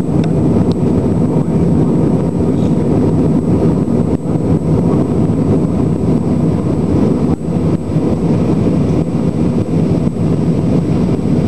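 Steady low rumble of an Airbus A319's jet engines and rushing air, heard from inside the passenger cabin while the airliner climbs after takeoff.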